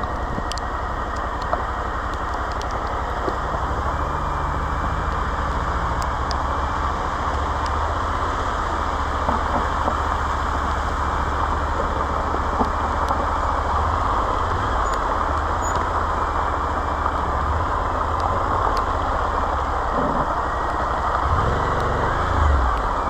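Suzuki V-Strom 1050XT's V-twin engine running steadily under a continuous rushing noise, with a brief change in the engine note near the end.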